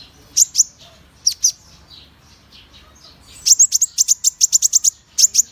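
Konin (kolibri ninja sunbird) calling in sharp, high, downward-slurred chirps. There are a few single notes, then a fast chattering run of about six or seven chirps a second from about three and a half seconds in.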